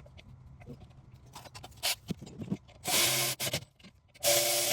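Two short bursts of hissing from an aerosol spray can, each about half a second, the second near the end, among light scrapes and clicks of brake parts being handled.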